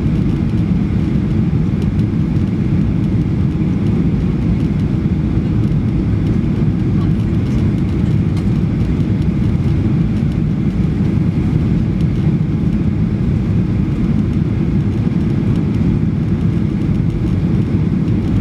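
Steady cabin noise inside a Boeing 737-800 on approach: a constant low rumble from its CFM56 engines and the airflow over the fuselage, unchanging throughout.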